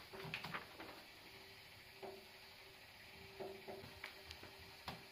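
Faint rustles and light ticks of a paper instruction booklet being handled and its pages turned, a few scattered times, over a faint steady hum.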